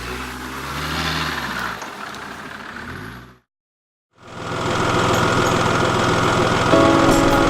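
Off-road vehicle engine running and revving, its pitch rising and falling. The sound cuts out completely for under a second just past the middle, then a louder, steady engine-like drone starts.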